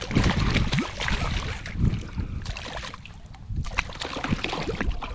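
Hooked redfish thrashing and splashing at the surface beside a kayak, in irregular bursts, with wind rumbling on the microphone.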